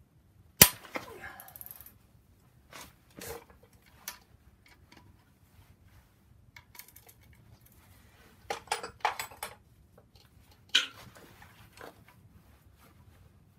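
Hand tools clinking and clanging against metal engine parts: a sharp clang about half a second in, a few light clicks, a quick run of clinks around nine seconds, and another clang near eleven seconds.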